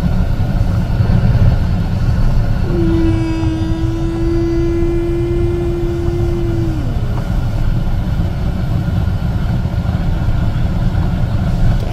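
A steady low rumble, either wind buffeting the microphone or an idling vehicle. Over it, a voice holds one long note for about four seconds, starting a few seconds in, then slides down and stops.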